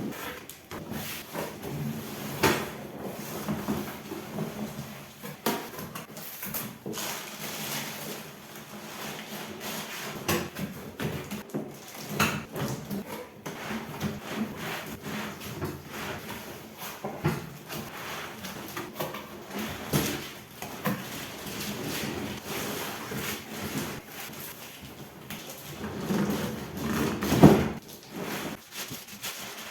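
A cardboard box being opened and its packaging handled: irregular rustling, scraping and knocks, with a louder bout of handling near the end.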